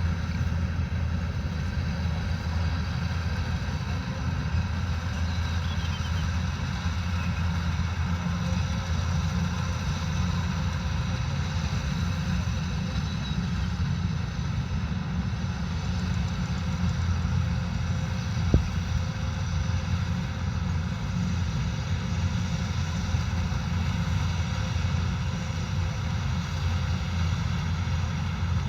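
Kubota combine harvester running steadily while harvesting rice: a constant low engine drone with faint steady whines from the machinery above it. One sharp click about two-thirds of the way through.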